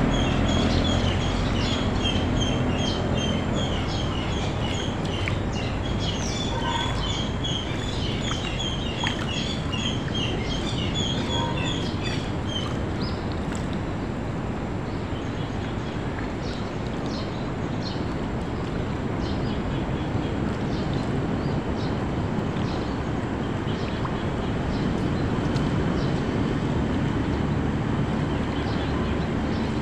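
A small boat's engine running steadily. Birds chirp rapidly over it for about the first twelve seconds, then fall away.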